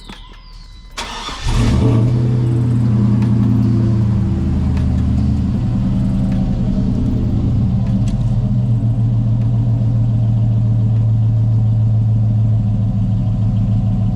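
Pickup truck engine starting, freshly oil-changed: a brief crank about a second in, then it catches, revs up and settles into a steady idle.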